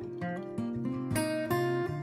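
Background music on acoustic guitar: a short run of picked notes stepping upward, then strummed chords a little past a second in.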